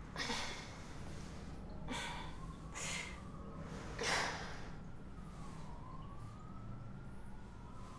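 A woman's heavy breathing: four sharp breaths in the first half, the loudest about four seconds in. A faint siren wails in the background, its tone rising and falling slowly.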